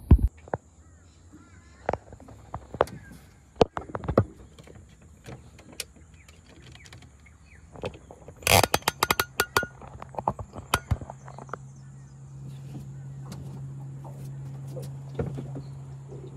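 Knocks, clicks and rattles of a phone camera being handled and set up in a small aluminium boat, with a quick clatter about eight and a half seconds in. From about nine and a half seconds a steady low hum sets in, the outboard motor idling.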